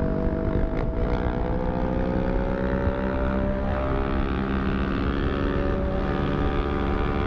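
Motorcycle engine running at fairly steady revs while riding, its note rising slightly about a second in, with wind rumble on the microphone.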